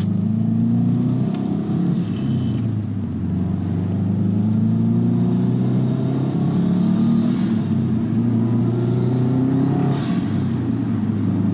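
Turbocharged flat-four of a 2006 Subaru WRX with an STI six-speed swap and aftermarket turbo and exhaust, heard from inside the cabin pulling through the gears: the engine note climbs, drops at each upshift, about three times, and climbs again.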